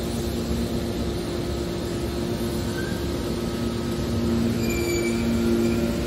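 Hydraulic scrap metal baler running, its hydraulic power unit giving a steady low hum over a rumbling noise. About four and a half seconds in it gets a little louder and short high metal squeals come in.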